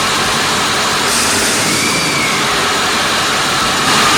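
Ford F350's 7.3-litre V8 diesel engine running steadily, now getting fuel after a switch to the front tank.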